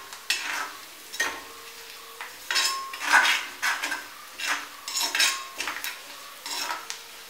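A perforated metal spatula stirs and scrapes around a black iron kadai in about ten irregular strokes, while crushed ginger, garlic, green chillies and curry leaves sizzle in hot coconut oil. Some strokes leave a brief ringing tone from the pan. The aromatics are being sautéed until their raw smell is gone.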